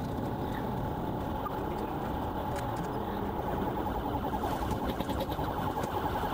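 Police car's electronic siren in a fast, rapidly warbling yelp, heard from inside the chasing car over steady road and engine noise.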